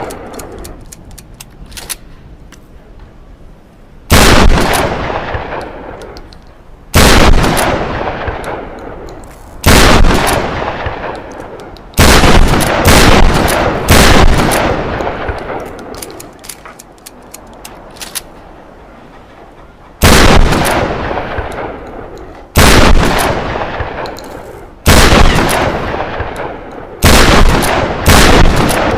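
Trench shotgun fired shot after shot, about nine loud blasts every two to three seconds with one longer pause in the middle. Each blast trails off in a long echoing tail, and faint clicks come between some shots.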